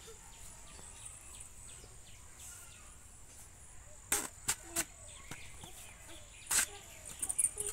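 Knife chopping through thick taro stalks on a wooden block: three sharp chops about four seconds in and one more near the end, over a faint steady drone of insects.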